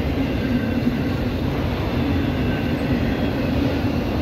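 Autorack cars of a freight train rolling past, a steady, unbroken rumble of steel wheels on the rails.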